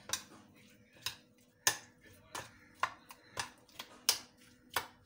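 A metal spoon clinking against a white ceramic plate while tossing fruit chaat: about nine short, sharp clicks at uneven intervals, roughly two a second.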